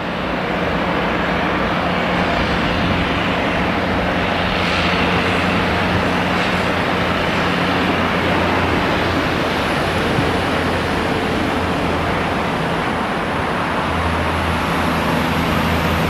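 Diesel freight locomotive and its train running past, a loud steady rumble of engine and wagons, with the engine note growing a little stronger near the end.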